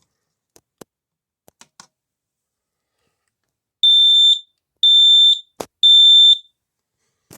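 Home smoke alarm sounding its test alarm after its test button is pressed: three loud, high, steady beeps of about half a second each, one second apart, the temporal-three alarm pattern. A sharp click falls between the second and third beeps.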